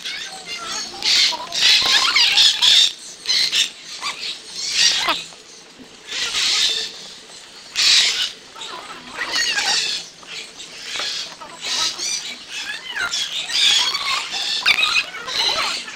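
Many caged birds, macaws and other parrots among them, chirping and squawking, their high calls coming in repeated bursts about a second long, one after another.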